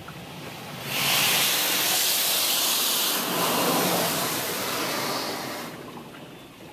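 Laserwash touchless car wash spraying water onto the car, heard from inside the car: a loud, even hiss of spray that comes on about a second in, holds, and fades away near the end as the spray passes.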